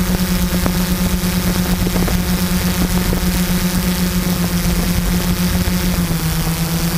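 Quadcopter's four MultiStar 2212 920kv brushless motors spinning carbon-fibre propellers in a hover, heard from the GoPro on the craft: a steady hum over a hiss of air. The pitch dips slightly about six seconds in.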